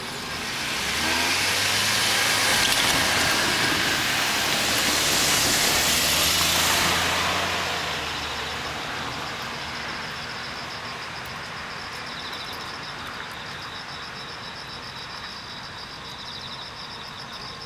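A vehicle passes: its rumble swells over about a second, stays loud for several seconds, then fades away. Crickets chirp steadily throughout.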